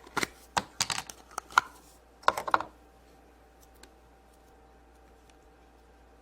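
A quick run of sharp clicks and crackles from hands handling a Play-Doh surprise and the small plastic toy packed inside, over the first two and a half seconds, then only a faint steady hum.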